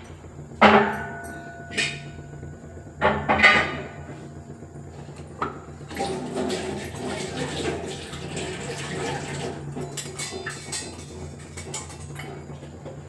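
Steel kitchen utensils clanking and ringing, several sharp knocks in the first few seconds. Water then pours or runs for about three seconds, followed by a few lighter clinks.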